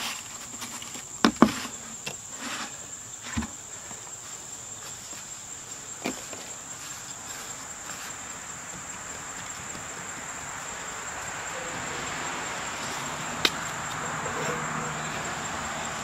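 A steady, high-pitched insect chorus drones throughout, with a few sharp knocks, the loudest about a second and a half in and a last one near the end.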